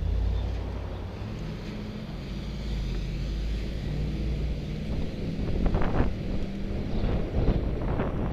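Small yellow school bus's engine running close by as it pulls ahead, a heavy low rumble that eases off after about four seconds. Wind then buffets the bike-mounted camera's microphone in gusts near the end.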